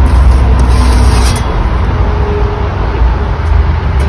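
A loud, steady low rumble.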